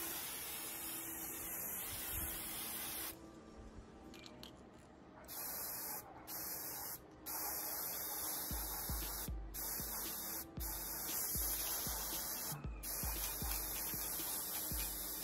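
Aerosol spray-paint can hissing as it sprays in long passes, broken several times by short gaps where the nozzle is let go.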